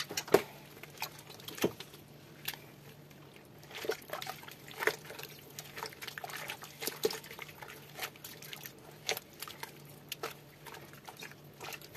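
Rubber-gloved hands working soft cheese curd in a steel pot of hot water, giving irregular splashes and wet squelches with a few sharp knocks. The two loudest come within the first two seconds. A low steady hum runs underneath.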